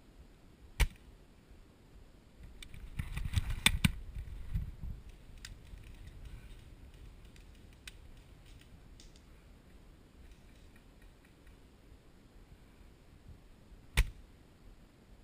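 Two sharp single shots from an airsoft rifle, about thirteen seconds apart. Between them, about three seconds in, there is a short stretch of rustling and clicking, then a few faint clicks.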